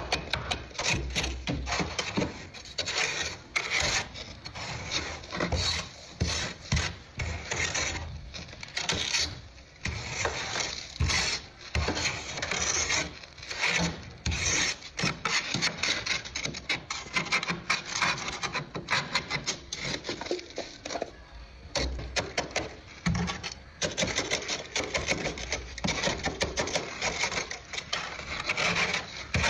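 Plastic scraper scraping thick frost off a freezer's walls and shelf, in rapid repeated strokes with brief pauses between runs.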